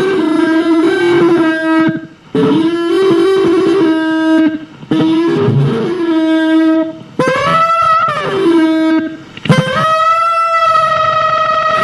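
Amplified throat singing through a small amplifier: five held notes of about two seconds each with short breaks, a strong whistling overtone ringing above the drone. It swoops up and down in pitch about eight seconds in, and holds a high overtone through the last note.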